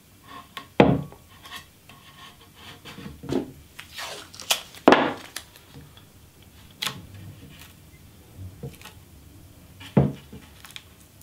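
Masking tape being pulled and torn by hand while a plastic damp-proof-course strip is taped along a wooden paddle blade: scattered rustles and short rips, with a few sharp knocks on the wooden bench.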